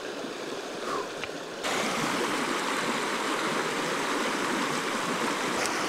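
Shallow, partly iced-over river flowing over rocks: a faint steady rush of water that becomes a louder, even rush abruptly about one and a half seconds in.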